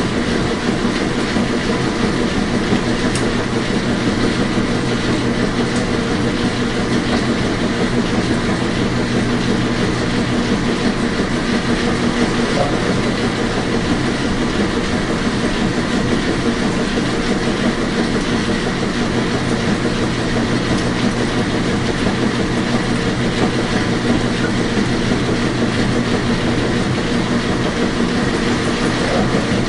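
Washing machine running: a loud, steady mechanical whir with a constant motor hum under it.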